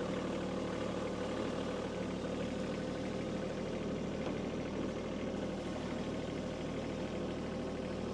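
Kubota B2301 compact tractor's three-cylinder diesel engine running steadily.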